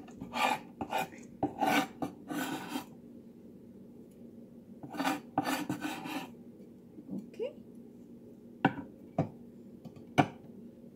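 Kitchen knife blade scraping chopped spring onion across a wooden cutting board into a stainless steel bowl, in several scraping strokes during the first three seconds and again around five to six seconds. A few sharp knocks follow near the end as the knife is laid down on the board.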